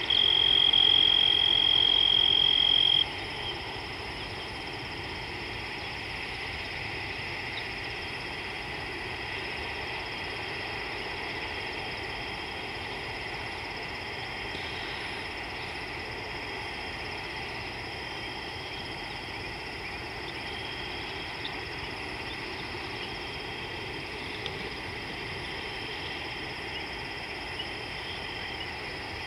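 Steady evening chorus of insects and frogs. A loud, high, steady whistle-like tone sounds over it at first and stops abruptly about three seconds in.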